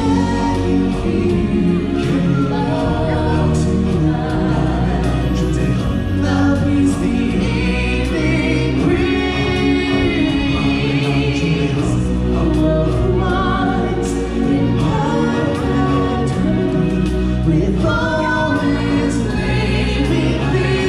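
Choir singing with band accompaniment over a steady deep bass, the high voices holding wavering notes with vibrato around the middle.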